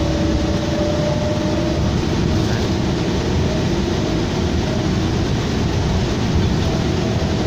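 Inside a 2007 New Flyer D40LFR diesel low-floor bus under way: a steady rumble of engine and road noise, with a faint steady whine over it.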